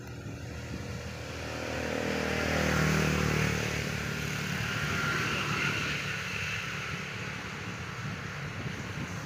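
A motor vehicle passing by, its engine tone sliding down in pitch as it goes past, loudest about three seconds in, then fading into a steady hiss.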